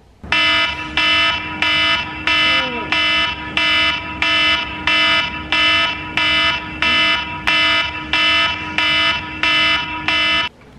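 Smartphone alarm beeping in a steady repeating pattern, about one and a half beeps a second, then cut off near the end as it is switched off.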